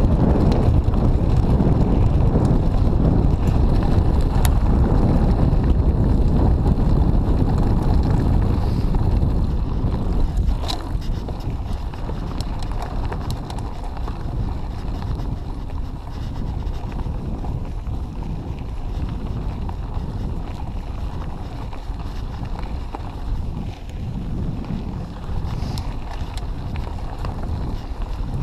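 Wind rushing over the camera microphone of a mountain bike riding down a dirt and gravel track, with the tyres running over the ground and a few sharp clicks from the bike. Louder for the first ten seconds or so, then a little quieter.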